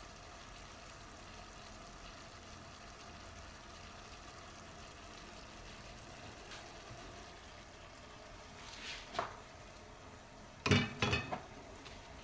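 Sambal goreng kentang (diced potatoes in chilli sauce) frying gently in a pan, a low steady sizzle. Near the end comes a quick cluster of clatters and knocks, the loudest sound here, with a fainter knock shortly before it.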